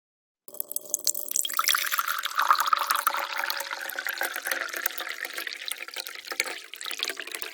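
Tea being poured from a teapot into a cup: a continuous splashing stream of liquid that starts suddenly about half a second in.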